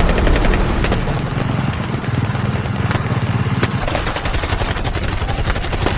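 Battlefield sound effects: rapid machine-gun fire crackling throughout, over a low engine drone that drops away a little past halfway, with a couple of sharper single shots about three seconds in.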